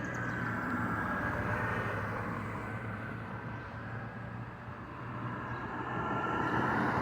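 Church bell ringing: its tones fade away in the middle and a fresh stroke comes in near the end, over a steady low rumble.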